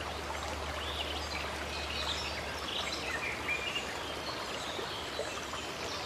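A stream of running water rushing steadily, with small birds chirping and calling now and then over it.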